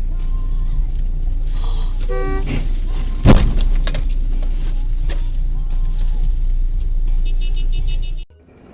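Steady low rumble of a car driving. A car horn sounds briefly about two seconds in, then about a second later comes a single sharp, loud bang like a collision, followed by a smaller knock. The sound drops away suddenly near the end.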